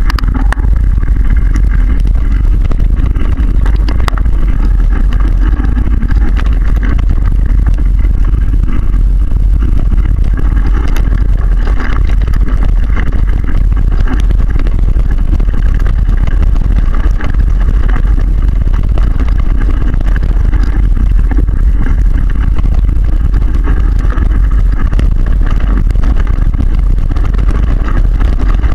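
Steady, loud wind rumble on a moving action camera's microphone during a mountain bike ride on dirt singletrack, with a constant clatter of the bike rattling over rough ground.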